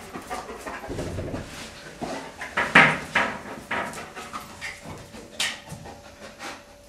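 German Shepherd detection dog panting and moving about as it searches, with a string of short irregular noises that are loudest about three seconds in.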